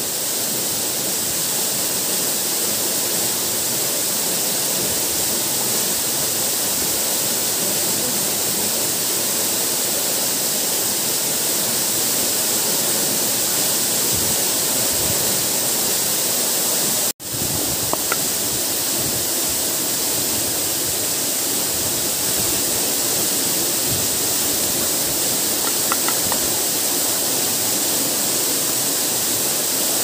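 Steady rushing of a small waterfall and the stream below it, cutting out for an instant about halfway through.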